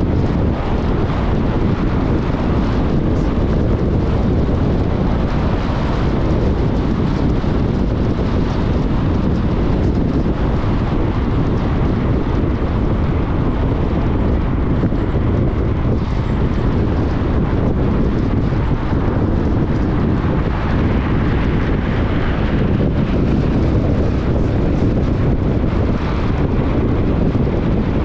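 Steady wind rumble on the microphone of a camera on a moving car, mixed with the hum of tyres on the road.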